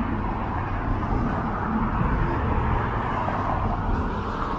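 Downtown street traffic: a steady rumble of car engines and tyre noise that swells and eases as vehicles pass.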